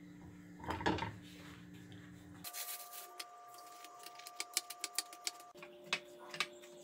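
Hands shaping and pressing masa dough for sopes on a counter, giving quick, light, irregular clicks and taps over a faint steady hum. A brief soft noise comes about a second in.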